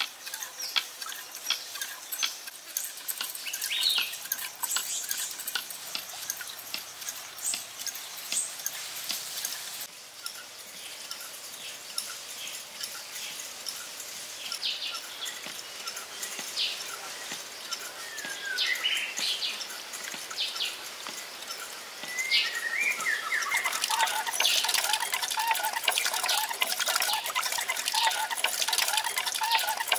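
Birds chirping and calling over a background of running water, with scattered short taps. About two-thirds of the way in it gets louder, with water splashing from a small bamboo water wheel into a pond and busier birdsong.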